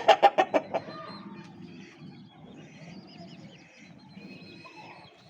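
A loud, rapid run of chicken clucks in the first second, then small birds chirping faintly and scattered through the rest.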